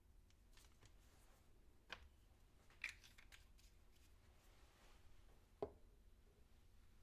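Quiet kitchen ambience, near silent, with a few faint clicks and knocks of kitchenware: three sharper ones about two, three and five and a half seconds in.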